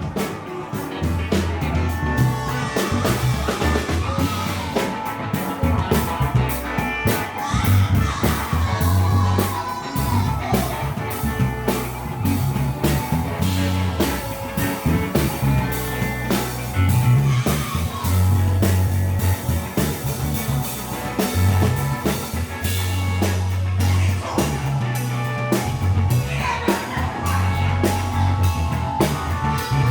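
Funk band playing live, an instrumental passage with a repeating bass line under drum kit and lead lines.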